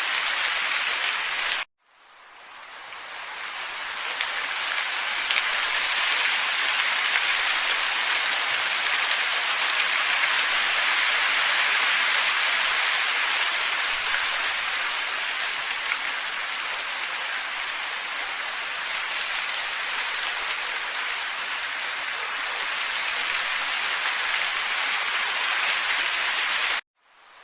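Steady, even hiss of wind ambience, like wind blowing through snowy trees. It cuts out abruptly about two seconds in, fades back up over a couple of seconds, and cuts out again near the end.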